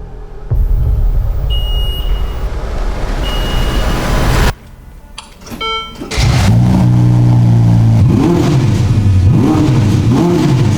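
Ferrari SF90 Spider's twin-turbo V8 firing up and running, with a few short electronic beeps over it. After a brief break it runs again and is revved several times from about two-thirds of the way in, the pitch climbing and dropping with each blip.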